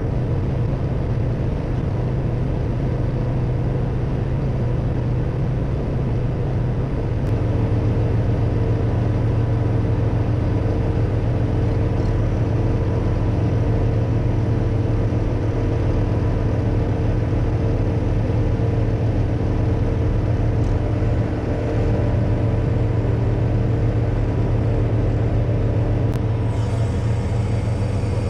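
Crane truck's engine running steadily while it powers the hydraulic knuckleboom crane, stepping up louder about seven seconds in, with a faint steady whine joining it.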